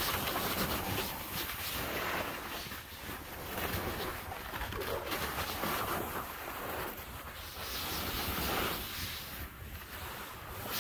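Splitboard sliding and carving over snow, a hiss that swells and eases with each turn, mixed with wind rushing over the microphone.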